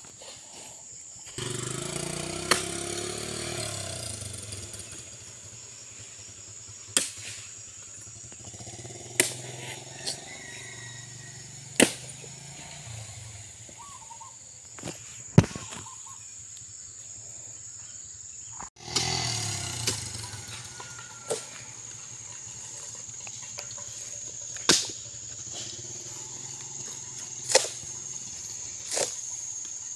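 Axe chopping into oil palm fruit bunches: a dozen or so sharp blows at irregular intervals, a few seconds apart, over a steady high insect drone.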